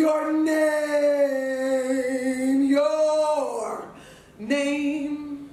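A woman's voice singing unaccompanied in long held notes: one note held for about three and a half seconds, sagging slightly and rising again, then a short break and a second held note that stops just before the end.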